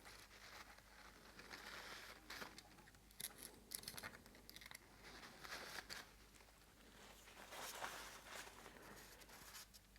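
Quiet handling noises: faint scattered light clicks and rustling as small engine parts are handled and worked loose.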